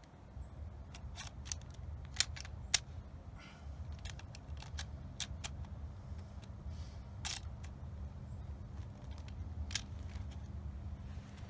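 Light metallic clicks from an M1 Garand rifle's action being handled, scattered and irregular, with two sharper clicks a little over two seconds in, over a low steady rumble.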